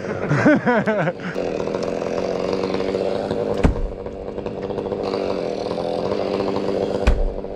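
Chainsaw running at a steady speed, with two heavy thumps about three and a half seconds apart.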